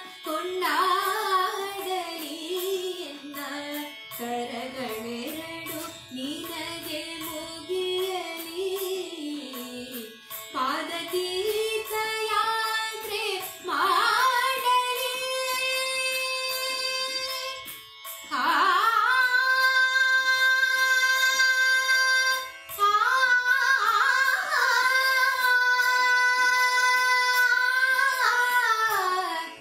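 Carnatic-style devotional song (Kannada devarnama): one melodic line of long held notes that slide up and down into each pitch. It is louder and more sustained in the second half.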